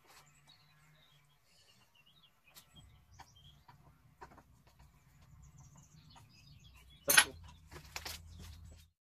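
Faint chirping of small birds with scattered light clicks and knocks from handling a pole pruner, and one loud knock and rustle about seven seconds in.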